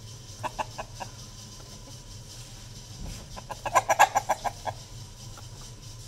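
Desi chickens clucking: a short run of about four clucks near the start, then a louder, quicker run of about ten clucks around the middle.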